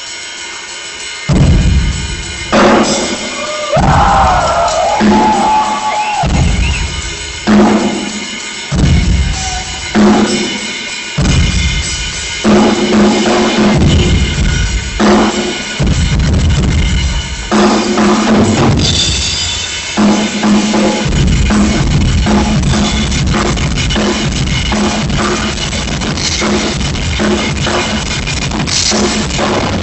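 Drum kit played live and loud: heavy accented hits with short pauses between them, breaking into continuous fast playing about twenty seconds in.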